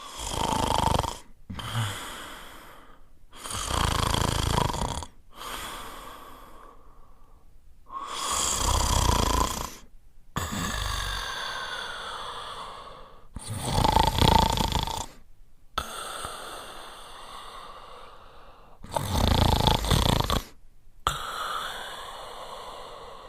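A French Spaniel snoring in its sleep: five loud snores, about one every four to five seconds, with softer breathing between them that at times carries a faint whistle.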